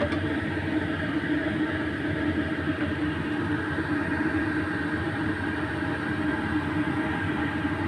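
Steady, even whirring rumble of a gas stove and kitchen running while papaya leaves and fish stir-fry in a nonstick pan.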